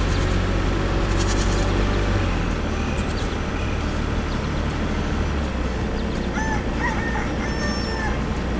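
A heavy tractor-type engine running with a steady low rumble. A few short pitched animal calls come in about six seconds in.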